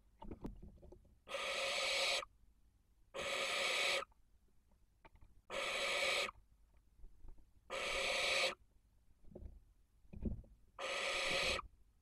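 Barn owls hissing: five long, breathy screeches of about a second each, repeated every two seconds or so, with soft knocks and rustling of the birds shifting on the nest floor between them.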